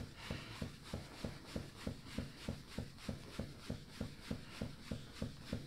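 Light, rapid tapping of a massage therapist's knuckles on the glute muscles through a sheet, about five even strikes a second: percussion to reactivate the muscle.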